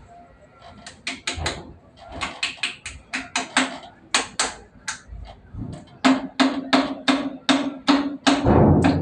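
Repeated hammer blows on metal, roughly three a second and irregular. After about six seconds they grow louder and each strike rings briefly.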